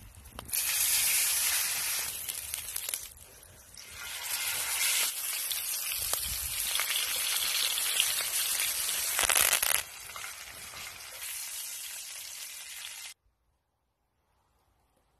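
A steak sizzling loudly as it sears in hot oil in a cast iron skillet, later with butter and garlic foaming around it. The sizzle drops down in level about ten seconds in and cuts off suddenly about thirteen seconds in.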